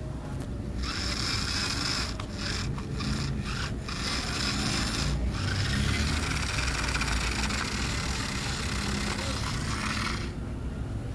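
Steady rasping, scraping noise, broken by a few brief pauses early on, over a low rumble; the rasping stops about a second before the end.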